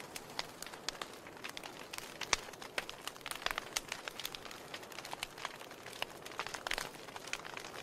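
Wood logs burning on glowing embers, crackling: irregular sharp pops and snaps over a soft hiss, with one louder pop about two and a half seconds in.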